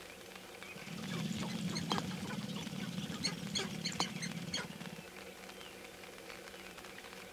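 Male sharp-tailed grouse dancing on a lek: a rapid, pattering rattle of stamping feet and shaking tail feathers runs for about four seconds, starting about a second in, with sharp clicks near the middle.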